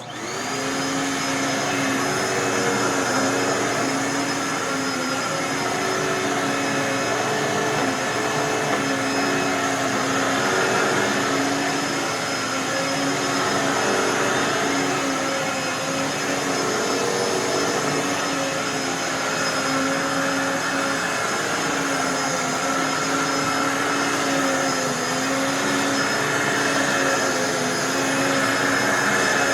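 Dirt Devil Purpose For Pets upright vacuum switched on, its motor spinning up to speed within a moment and then running steadily with a high whine. The brush roll is set to medium pile and agitates the carpet, and the lower tones waver slightly as it is pushed.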